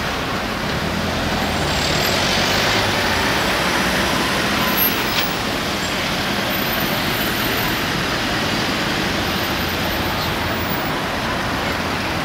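Steady road traffic noise from vans, cars and buses driving past close by on a busy city street.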